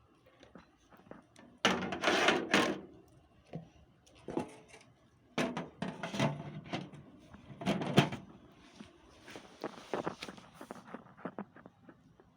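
Handling noises: irregular knocks, clicks and rustles as objects are picked up, moved and set down, with the loudest bursts about two, five and eight seconds in.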